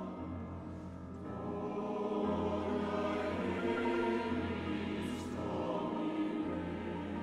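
Mixed choir singing a slow, sustained requiem passage with marimba accompaniment over a low held bass note. A short hiss sounds about five seconds in.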